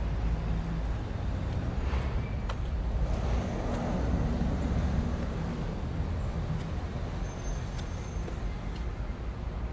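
Street traffic: a steady low rumble of motor vehicles, with one passing and swelling louder in the middle.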